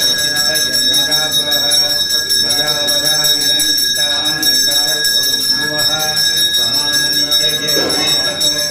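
Temple bell ringing continuously with a steady high ring, over a voice chanting Sanskrit verses during the ritual bathing of the idol.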